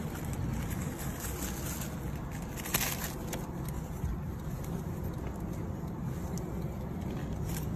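Clothing rustle and handling noise close to the microphone as a leather jacket is rummaged through, with a few sharp crackles over a steady low rumble.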